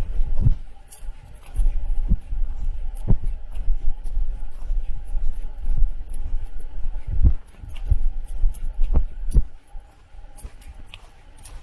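Wind rumbling and buffeting on the microphone, rising and falling in gusts, with irregular soft thumps of footsteps along the trail.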